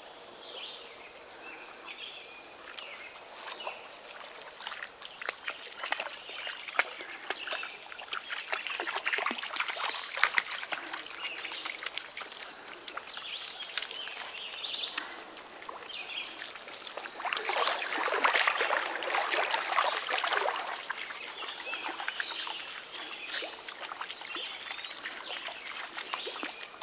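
A dog wading and splashing back and forth through shallow river water and mud, with a longer, louder bout of splashing about two-thirds of the way through. Birds call in the background.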